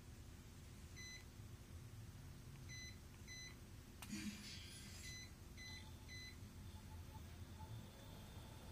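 Bell + Howell socket fan light giving short electronic beeps, six in all: one, then two, then three. A click about four seconds in comes as its LED light switches on.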